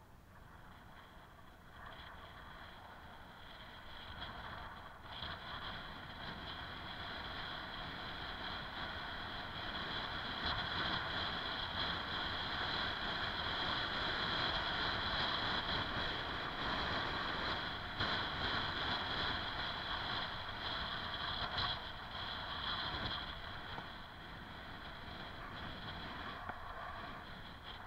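Bicycle coasting fast downhill on an asphalt lane: steady tyre and drivetrain whir with wind rushing over the camera microphone. It grows louder over the first ten seconds as speed builds and eases slightly near the end.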